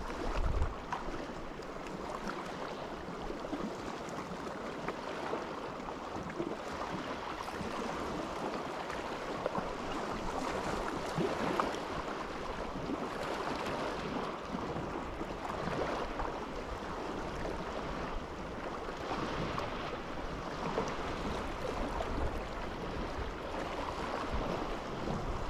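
Water washing and lapping steadily, with wind. A brief low rumble of wind on the microphone right at the start.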